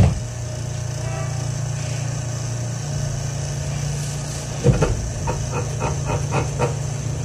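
Inside a Yamaman 1000-series rubber-tyred guideway train car: a steady low electrical hum while standing, then a thump about four and a half seconds in as the car starts to move off, followed by a quick run of clicks, about four a second, as it begins rolling.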